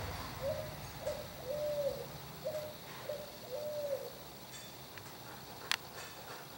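A bird calling in a repeated phrase of two short notes and a longer one, given twice, falling silent about four seconds in. A single sharp click follows near the end.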